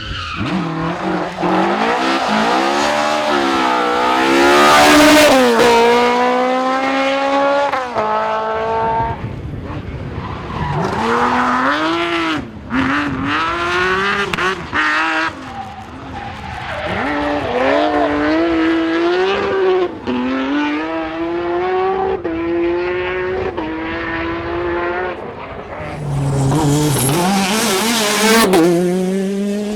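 Rally car engines revving hard, the pitch climbing through each gear and dropping back at every shift or lift, with tyres sliding as the cars drift through corners. Several cars pass one after another.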